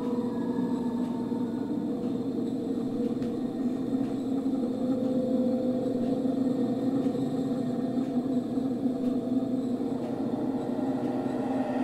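Steady low rumble and hum of a metro train, an even noise with a droning hum underneath.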